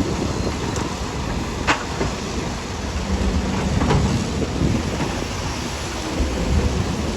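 Heavy earthmoving machinery running with a steady low rumble, with a couple of sharp knocks about two seconds apart.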